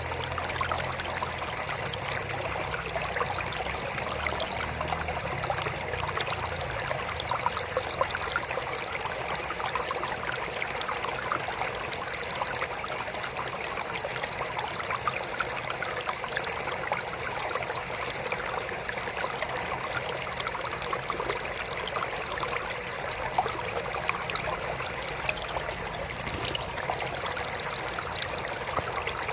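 Water trickling steadily in a mini aquarium, a continuous patter of small splashes, with a faint low hum underneath.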